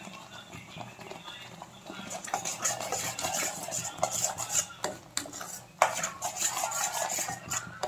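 Steel spoon stirring and scraping a thick masala paste around a steel kadhai, with metal clinks against the pan. The scraping gets louder about two seconds in, and there is a sharp knock near six seconds.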